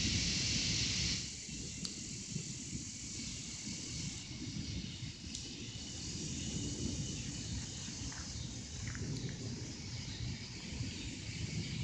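Gusty wind buffeting the microphone, with an uneven low rumble and a steady high hiss that is louder for the first second.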